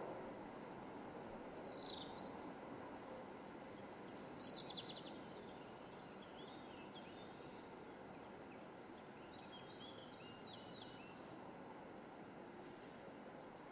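Small birds chirping faintly over a steady outdoor background hiss. There is a single chirp about two seconds in, a short rapid trill around five seconds in, and scattered high chirps after that.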